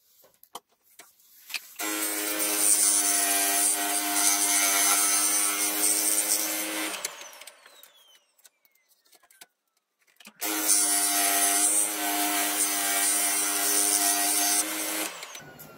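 Pegas 21-inch scroll saw running and cutting interior flower cutouts in a stacked wood blank, a steady motor hum under a hissing cut. It runs for about five seconds and stops with a falling whine as the blade is threaded into the next hole, then runs and cuts again for about five seconds before stopping. A few light clicks of handling come before the first cut.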